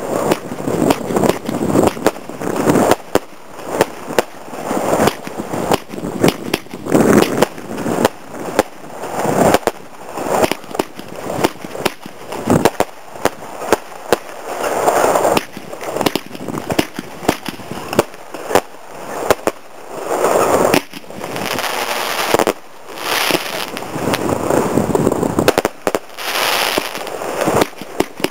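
Royal Party RP60 30mm fan barrage firework cake firing shot after shot, sharp bangs coming about one or two a second, with several thicker clusters of shots fired together as volleys.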